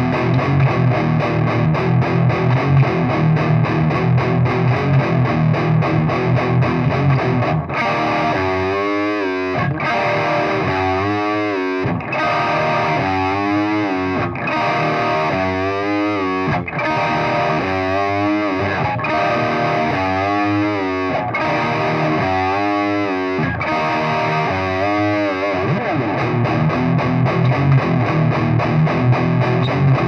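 Distorted electric guitar played through a Marshall 4x12 cabinet loaded with Eminence Wizard and Texas Heat speakers. A fast, tightly picked rhythm riff gives way after about eight seconds to held chords whose tone sweeps up and down about every two seconds from an effect. Near the end the fast riff returns.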